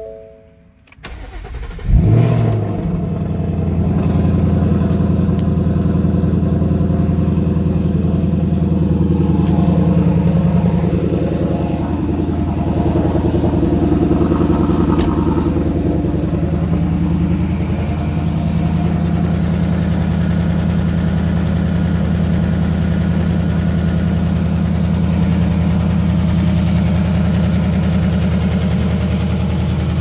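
2018 Mustang GT's 5.0-litre V8 cold start: the starter cranks briefly, the engine catches about two seconds in with a short flare, then settles into a very loud, steady cold-start fast idle.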